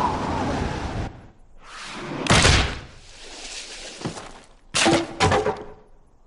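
Cartoon slapstick sound effects: a rush of noise, a loud crash about two and a half seconds in, then two sharp bangs near the end.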